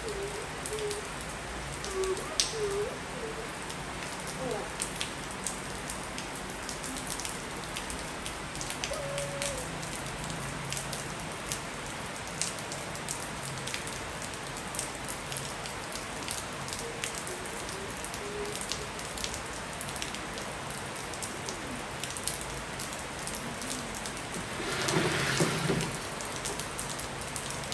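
Steady rain falling on wet tiles, with many small raindrop ticks scattered through it. Near the end a louder rushing swell lasts a second or two.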